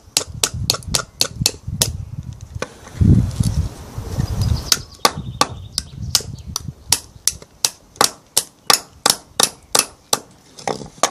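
Quick, regular hammer taps on the back of a knife blade, driving it into a log to shave off wood, about four a second. About two and a half seconds in the tapping breaks off for a couple of seconds under a low rumble, then resumes a little slower.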